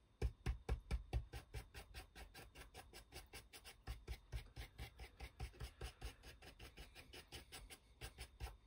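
A large stiff brush loaded with silver paint dabbing rapidly on a laser-cut MDF piece: a steady run of quiet taps, about five or six a second.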